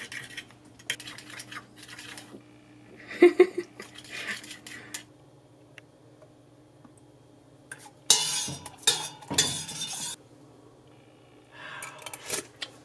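Chopsticks beating eggs in a ceramic bowl, clinking quickly against its sides, then metal utensils clattering and scraping in a stainless steel pot, loudest about eight seconds in.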